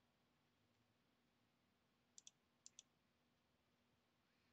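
Near silence, broken a little past halfway by two quick pairs of soft computer mouse clicks.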